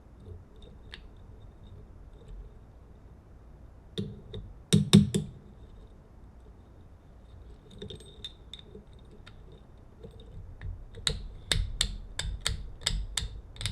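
Sharp metal clicks and taps of a hand tool working the stainless steel cover off a door lock cylinder. Three quick clicks come about five seconds in, then a run of about three clicks a second near the end.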